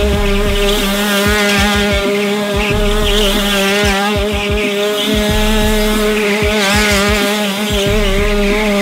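Two-stroke shifter kart engine held at high revs, its pitch wavering up and down with the throttle as the kart spins donuts, with the rear tires squealing as they slide on the concrete.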